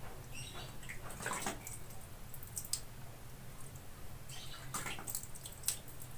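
Water splashing lightly in a plastic basin as a hand dips into it, in a few short bursts.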